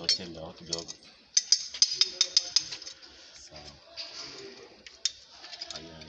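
Metal clinking as a pipe wrench and hand tools are worked on a threaded pipe fitting: a quick run of about eight sharp clinks starting about a second and a half in.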